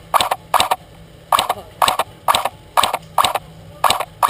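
Footsteps walking at an even pace, about two steps a second, each a short crunch, with a brief pause about a second in.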